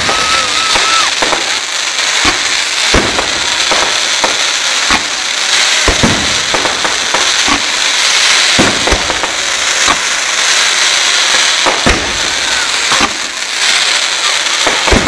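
Fireworks display: aerial shells bursting with irregular sharp bangs, roughly one or two a second, over a continuous dense crackling from crackling stars.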